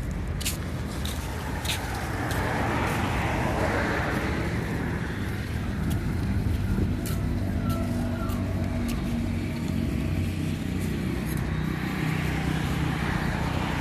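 Highway traffic noise: a steady rumble of road vehicles that swells as vehicles pass about two seconds in and again near the end, with a few light clicks near the start.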